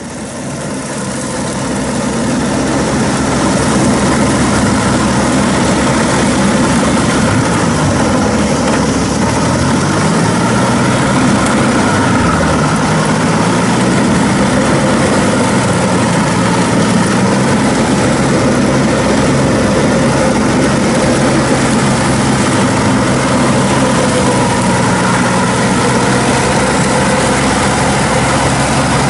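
KANEKO hammer-knife crawler mower running hard, its engine and flail rotor chopping through brush over the clattering tracks. The sound fades in at first, then holds steady; around ten seconds in the engine pitch sags and recovers as the machine takes the load of thick growth.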